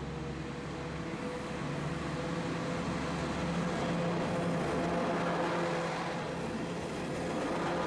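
A Dosan Line diesel train running past, its engine hum and rolling noise growing louder toward the middle.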